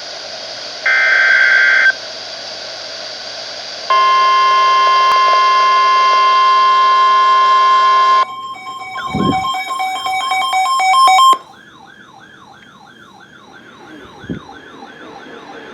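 NOAA Weather Radio emergency alert over a hissing radio channel. A burst of SAME header data tones lasts about a second, then the steady 1050 Hz warning alarm tone sounds for about four seconds. From about eight seconds in, a warbling siren-like alarm rises and falls rapidly over pulsing tones, becoming much quieter after about eleven seconds.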